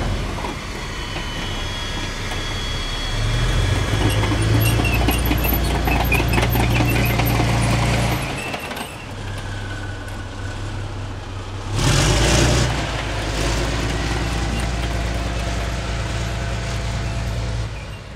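Patton tank's engine running as the tank drives slowly, its tracks clanking and squeaking. The engine grows louder about three seconds in, dips briefly near the middle, and gives a short loud surge about two-thirds of the way through.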